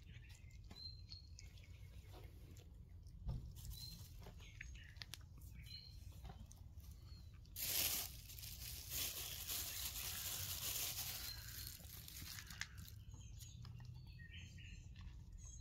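Small birds chirp now and then in the background. About halfway through, a rustling, crinkling noise starts with a sudden louder burst and carries on for about four seconds before fading.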